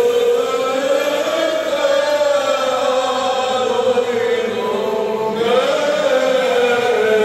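Orthodox church chant: slow melismatic singing with long held notes that glide gently up and down.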